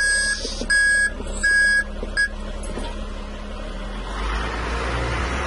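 Wheel loader with snow chains reversing: its reverse alarm beeps about four times, a little over once a second, over the steady running of its diesel engine. The beeping stops after about two seconds, and the engine grows louder near the end.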